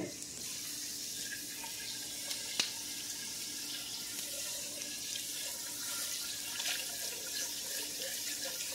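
Water from a kitchen faucet running into a stainless steel pot of cubed potatoes, a steady rush that grows slightly louder as the pot fills. A single sharp click about two and a half seconds in.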